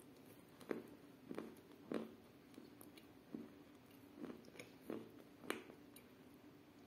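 Close-miked chewing of a mouthful of sawn chalk mixed in clay paste, with about eight short gritty crunches, roughly one a second.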